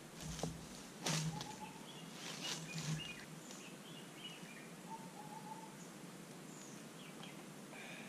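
Footsteps on dry fallen leaves, a few steps in the first three seconds, then faint scattered bird chirps and calls over quiet forest ambience.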